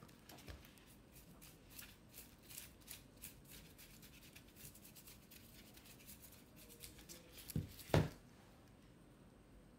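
Light rustling and small taps of a stretched canvas being handled, then two knocks close together near the end, the second louder, as the canvas is set down on the table.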